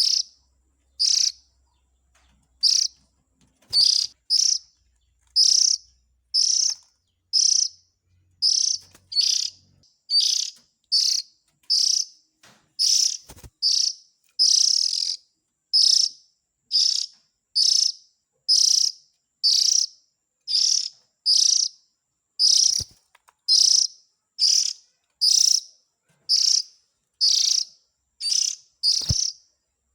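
Oriental magpie-robin (kacer) giving short harsh calls over and over, a little more than one a second, at an even pace and loudness. This is a recorded lure call of the kind used to draw magpie-robins in.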